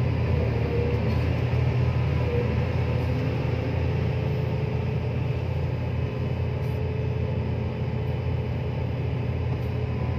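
Steady low rumble of heavy engines running, with a faint steady hum above it.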